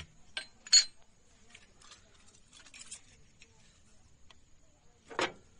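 Small metal hand tools clinking on the valve gear of a Maruti Suzuki Alto engine as a rocker arm tappet adjuster is set with a ring spanner, screwdriver and feeler gauge. Two sharp clinks come near the start, then scattered light ticks, and one louder knock near the end.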